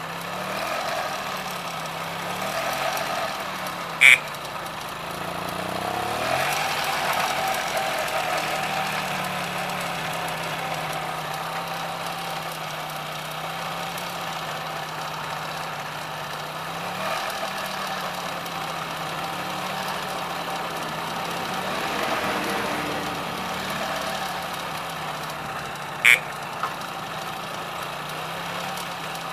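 The 50 cc Minarelli two-stroke engine of a 1968 Maino Rizzato EZ moped idling steadily on its first start, its speed dipping and picking up again a few times. Two sharp clicks stand out, about four seconds in and near the end.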